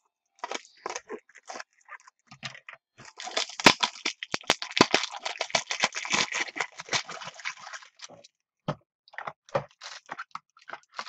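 Plastic card toploaders being handled and sorted, giving scattered clicks and knocks. About three to eight seconds in there is a dense stretch of crinkling and crackling.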